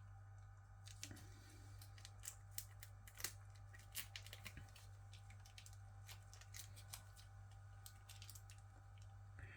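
Faint, irregular crinkling and clicking of a small plastic sauce sachet being opened and handled, over a steady low hum.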